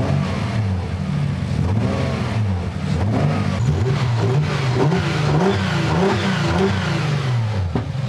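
Nissan 300ZX's VG30DE V6 being revved up and down with throttle blips. In the first part it misfires on cylinder two, whose fuel injector has failed open-circuit, and runs rough and slow to respond. After a cut it revs crisply in about five quick blips with the injectors replaced.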